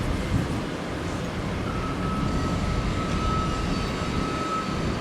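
Jet airliner passing overhead: a steady low rumble, joined about two seconds in by a steady high whine.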